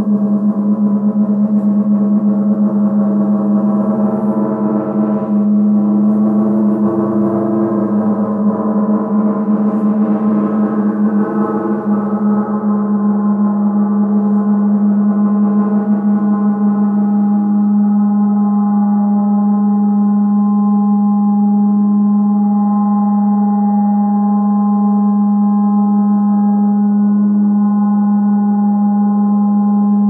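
A gong recording played in reverse: a sustained, shimmering wash of many overtones over a strong low hum, with no audible strikes. The overtones waver and shift through the first half, then settle into smoother held tones.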